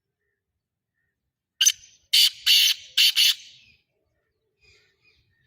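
Black francolin calling: one short harsh note, then a quick run of four loud, rasping notes, the whole call lasting under two seconds.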